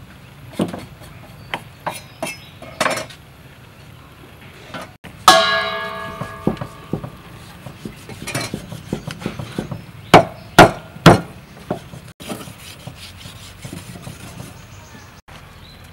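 Meat cleaver chopping through raw pork belly onto a wooden chopping block: irregular sharp, woody knocks, with a cluster of three loud chops near the eleven-second mark. About five seconds in, one loud strike rings out with a metallic, bell-like tone that slowly fades.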